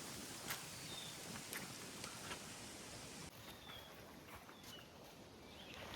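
Faint outdoor ambience with a few short, high bird chirps and scattered light clicks.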